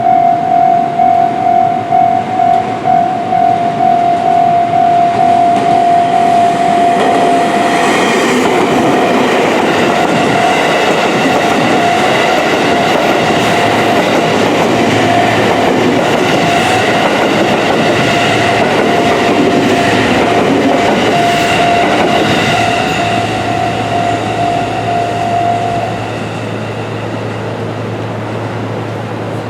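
Japanese level-crossing alarm ringing about twice a second while a JR West 281 series Haruka limited-express train runs past over the crossing from about seven seconds in until past twenty seconds. The alarm stops a few seconds before the end.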